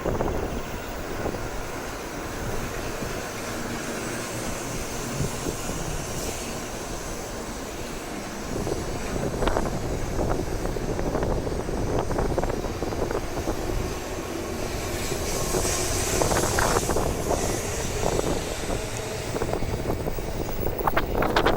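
Shinkansen train running along the platform, a steady rumble mixed with gusting wind noise on the microphone, growing somewhat louder in the second half.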